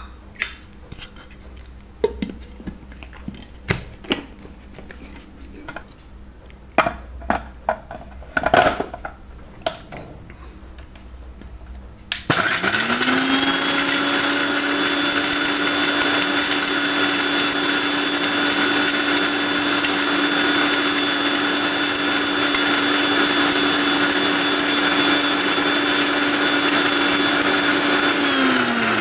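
Sujata Dynamix 900-watt mixer grinder run on low speed, grinding whole garam masala spices in its stainless steel jar. A few clicks and knocks come first; about twelve seconds in the motor starts abruptly and runs with a steady whine, then winds down with falling pitch near the end.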